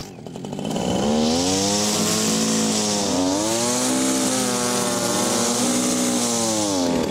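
Backpack leaf blower's small engine running loud with a rush of blown air, its pitch wandering up and down, then dying near the end as it runs out of gas.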